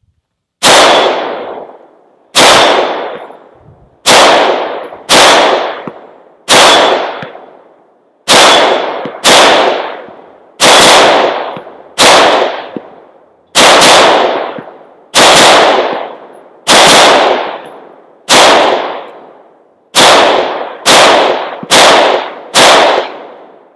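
Semi-automatic AR-15 rifle (Aero Precision M4E1 with a 16-inch .223 Wylde barrel) fired at a steady, unhurried pace: about eighteen single shots, one every second or two. Each shot is followed by a ringing echo that fades before the next.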